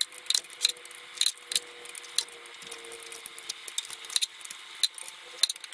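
A 17 mm wrench clicking and clinking against a tapered-thread oil pressure sensor as it is turned into the engine block, a few sharp metallic ticks a second at an uneven pace. The sensor is being tightened just past two turns past finger tight.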